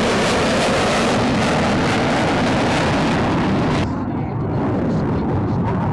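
Loud, steady jet noise from Boeing F/A-18 Hornet fighter jets flying low and close. About four seconds in it cuts suddenly to a duller, more distant jet rumble with the hiss gone from the top.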